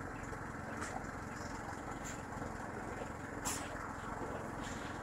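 A small engine running steadily, with two brief sharp ticks, one about a second in and a louder one midway.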